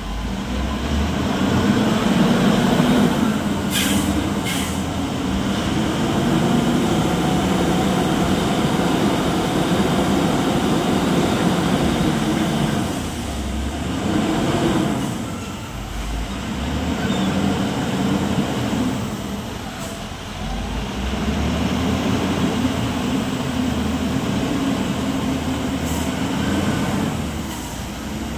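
LiuGong wheel loader's diesel engine working under load, revving up and easing off in several long swells as it pushes into the pile and lifts the bucket. A few short sharp clicks are heard about four seconds in and again near the end.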